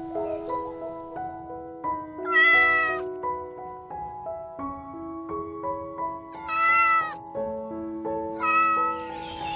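Domestic cat meowing three times, each meow short, over steady background music.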